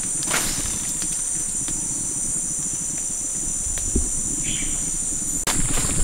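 Insects in the forest keep up a steady, high-pitched drone, with a few scattered footsteps crunching on the trail.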